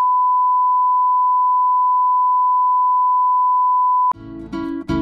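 A steady 1 kHz line-up test tone, the pure beep that goes with colour bars, cutting off abruptly about four seconds in. Acoustic guitar music starts right after.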